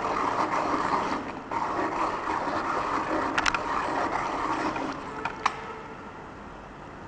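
A pencil being turned in a small plastic manual pencil sharpener, the blade shaving the wood in a steady scraping with a short break about a second and a half in. A few sharp clicks come near the middle and once more about five and a half seconds in, as the scraping stops.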